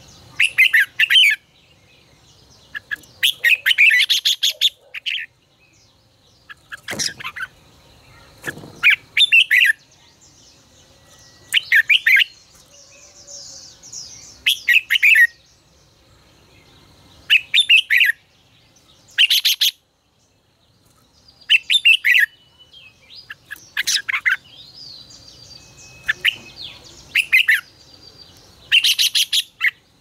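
Red-whiskered bulbul singing: short, loud phrases of quick whistled notes, repeated about every two seconds.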